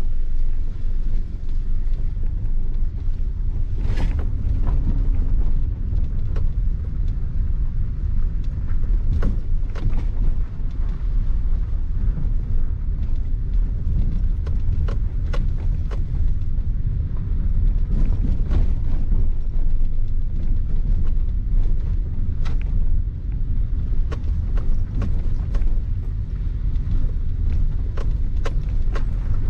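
Inside the cabin of a Maruti Suzuki Ignis driven in second gear over a rough, rocky unpaved road: a steady low rumble of engine and tyres, with frequent sharp knocks and creaks as the car jolts over the surface.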